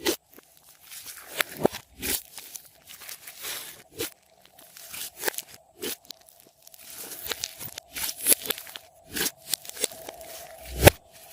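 Hard lollipop candy crunching and crackling as it is handled for slime, in irregular sharp crunches over a faint steady hum, with one heavier crunch near the end.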